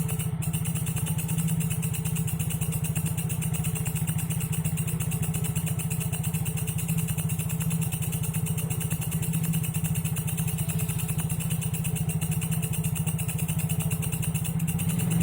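Walang kecek katydid calling: a continuous, very fast buzzing trill that holds steady without a break.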